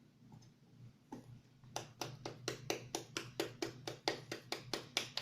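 A quick, even run of sharp clicks, about four or five a second, starting a couple of seconds in, over a faint steady low hum.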